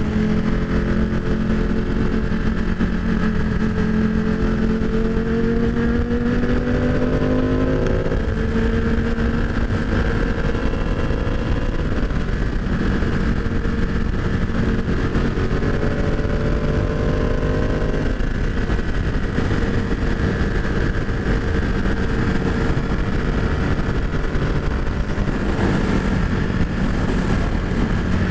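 Ducati 899 Panigale's V-twin engine pulling hard at highway speed, with wind rushing over the helmet microphone. The revs climb, drop sharply about eight seconds in, climb again and drop around eighteen seconds, and after that the wind noise covers most of the engine.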